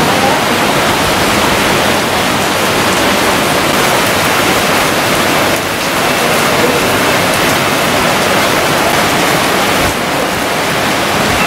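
Heavy rain pouring down steadily on leaves and wet pavement, a loud even hiss that dips briefly twice.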